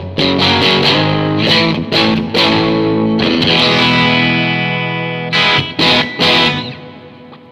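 Electric guitar, a Fender Stratocaster, played through a 1959 Fender 5F6-A Bassman tweed tube amp with four 10-inch speakers. It plays a run of quick notes and chords, then a chord left to ring and slowly fade, then three short stabbed chords about five to six seconds in before dying away.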